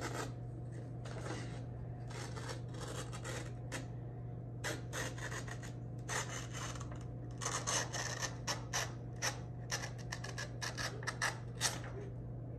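Scissors cutting along a sheet of lined notebook paper, trimming off the hole-punched margin: paper rustles as it is handled, then a quick run of short crisp snips in the second half. A steady low hum sits underneath.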